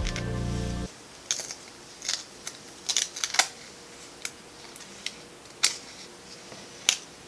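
Background music cuts off about a second in. Then packaging is handled during an unboxing: a scattered run of about a dozen short, sharp clicks and crinkles.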